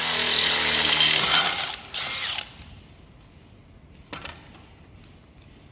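Makita 40V max XGT brushless drill running at full speed under load, then released about a second and a half in and winding down, with a short second pull of the trigger just after. A faint click follows.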